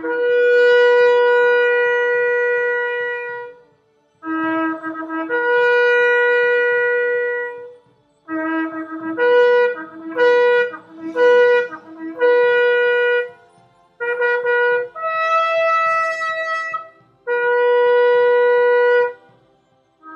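A long Yemenite shofar (kudu horn) being blown in a series of calls. First come two long blasts that each step up from a low note to a held higher note. Then comes a run of quick alternating low and high notes, and last three held high blasts, the middle one pitched higher.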